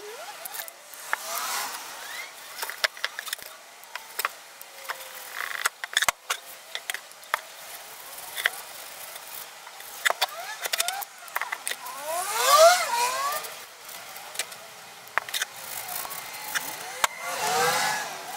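A cloth rubbing wax into a wooden clock face, squeaking in short rising and falling squeals, loudest about twelve seconds in. Scattered clicks and light metallic clinks come as the clock and its metal numeral ring are shifted and turned.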